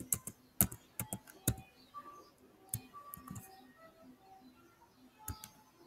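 Computer keyboard keystrokes, a handful of separate clicks, over faint background music.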